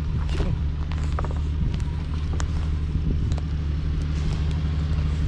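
Ford Ranger pickup's engine running steadily at a slow crawl as the truck rolls over a pile of loose boulders, with scattered sharp clicks and knocks from tyres and rocks.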